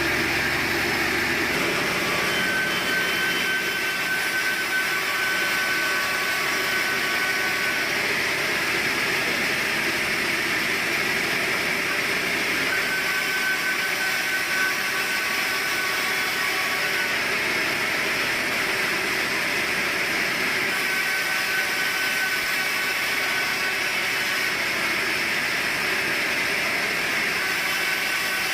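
Sawmill saw running steadily through a large log, with a faint high whine that comes and goes several times.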